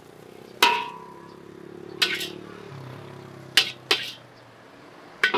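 Metal spatula striking a large steel wok while stir-frying noodles: five sharp clanks at irregular intervals, the first leaving a short ringing tone.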